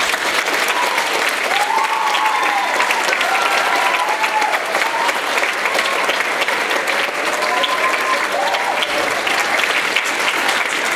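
Audience applauding steadily in an auditorium, starting suddenly at the end of a choir song, with a few voices calling out over the clapping.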